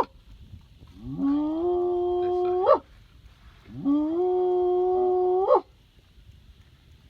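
Recorded spotted hyena whooping: two long whoops, each sliding up in pitch, holding steady, then ending in a sharp upward swoop.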